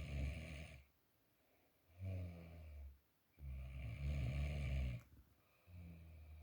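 A man snoring in his sleep: rough, rasping snores with quiet gaps between breaths. One snore ends just under a second in, and three more begin at about 2, 3.5 and 6 seconds.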